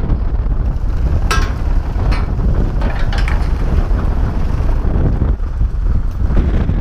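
Strong wind buffeting the microphone as a loud, steady low rumble, with a few short clicks about one, two and three seconds in.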